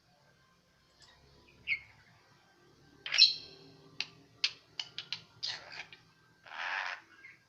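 Javan myna (jalak kebo) calling in its odd, varied voice: a short chirp, then a loud ringing note about three seconds in, a run of sharp clicks and short notes, and a harsh raspy burst near the end.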